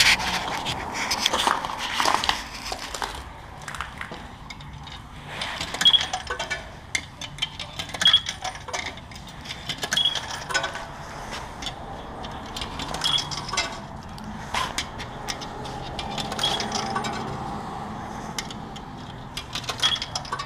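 Quarters fed one by one into a self-serve car wash coin box, clinking and rattling through the slot. Six short high pings sound a few seconds apart among the clicks.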